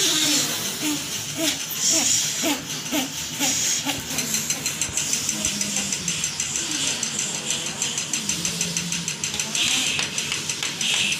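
People's spontaneous voice sounds during kundalini practice: a run of short, falling cries in the first few seconds, then a low, drawn-out moan. Under the moan runs a fast, even pulsing that starts about four seconds in.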